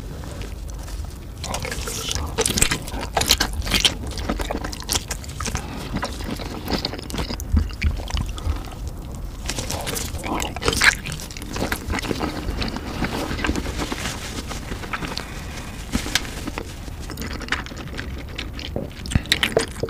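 Close-miked eating of large sausages: bites through the casing and wet chewing, with sharp little clicks and smacks scattered throughout.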